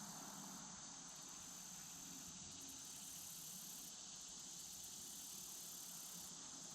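Faint, steady high-pitched insect chorus over a soft, even hiss.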